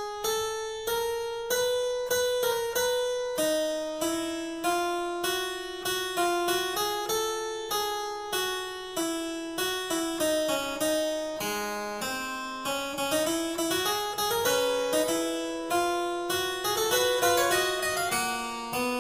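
Background music: a keyboard melody of crisp notes, each starting sharply and fading quickly, played in steady succession.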